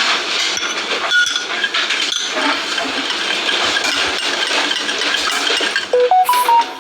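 Glass and spoon clinking of kitchenware over a steady rushing noise, with a short run of clear beep-like notes stepping up and back down in pitch near the end.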